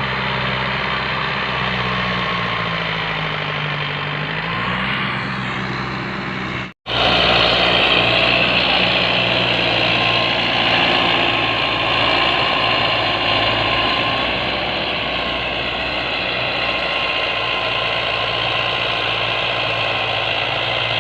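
Mahindra Arjun tractor's diesel engine, fitted with a modified rotary injection pump, running steadily; its speed dips briefly and picks up again about three to four seconds in. After a sudden break near seven seconds it runs louder at a higher, rougher pitch.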